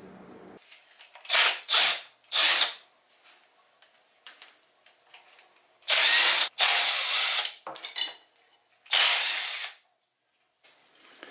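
Cordless power tool spinning bolts out of an engine's front timing cover in five short spurts, one of them longer, with a thin high whine on one.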